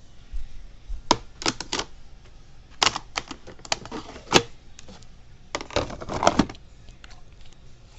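Quick sharp clicks and clatters of hard objects being handled, in three short flurries about a second or two apart.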